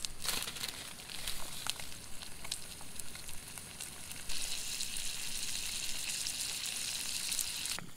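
Brook trout fillets frying in butter in a small camp pan: a steady sizzle with scattered pops, growing louder about four seconds in.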